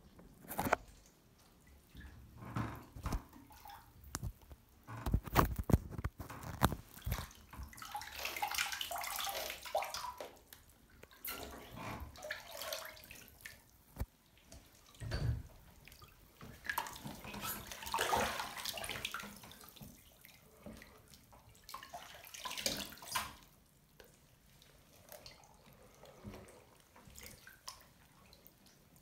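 Bath water sloshing and splashing in irregular surges as someone in a bathtub moves their legs, wearing sneakers and joggers, with a few dull knocks in between.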